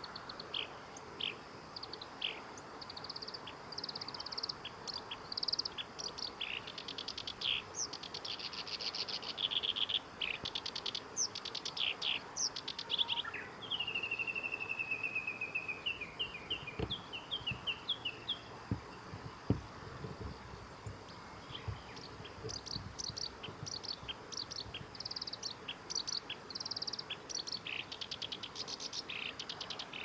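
Black-browed reed warbler singing its rapid, varied song of chattering, buzzy and whistled notes in long bursts. About halfway through the song pauses for a drawn-out, slightly falling whistle followed by short notes, then resumes.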